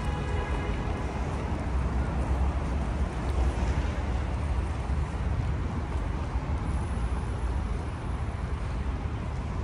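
Steady city traffic noise: a low, even rumble of road traffic with no single vehicle standing out.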